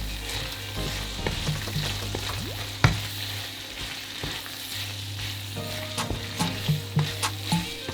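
Pasta being stirred into a tomato cream sauce sizzling in a pan: a steady sizzle, with the spoon knocking and scraping against the pan, one sharp knock about three seconds in and a run of quicker knocks near the end.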